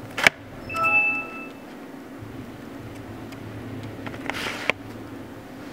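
A sharp click, then a brief electronic chime of several steady tones from the computer's speakers as the PC goes offline and begins shutting down. About four seconds in, a short rustle ends in another click.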